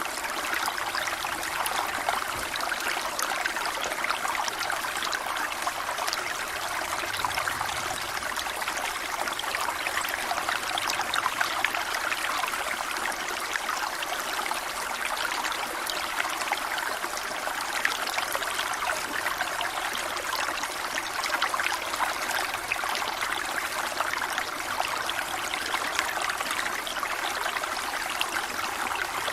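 A brook flowing steadily, water trickling and babbling over stones in a continuous, even rush.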